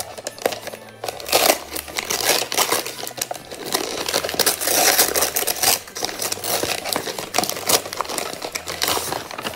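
Gift wrapping paper being torn and crumpled by hand as a present is unwrapped, a dense crackling and rustling full of sharp crinkles.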